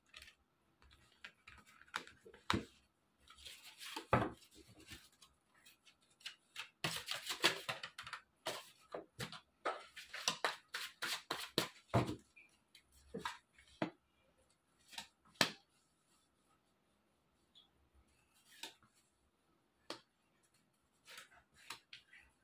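Tarot cards being shuffled and handled: runs of quick rustling and light clicks, densest in two spells in the first half, with soft taps as cards are laid on a cloth-covered table, then a quiet stretch.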